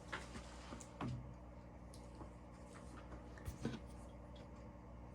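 Faint handling noise of wire and hand tools: a few small clicks and knocks, about a second in and again around three and a half seconds, over a steady low hum.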